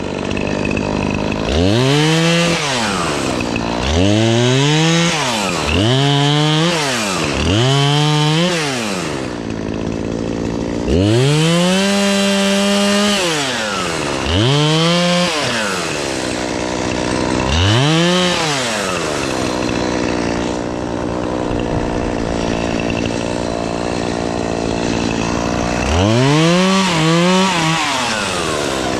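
Chainsaw revving up about eight times, each rev rising to full speed, holding for a second or two and dropping back to idle between: limbs being cut one after another while trimming a tree.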